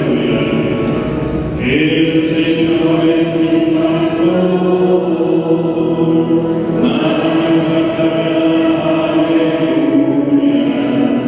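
Liturgical chant sung in church: a voice holding long notes, moving to a new note about two seconds in, again near seven seconds and near the end.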